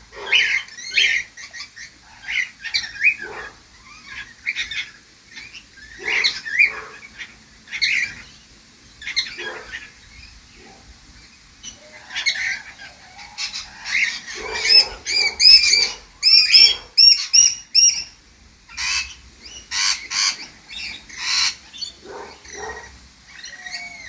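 Birds calling in short squawks and chirps that come in clusters throughout, with a busy run of quick, repeated rising notes about two-thirds of the way through.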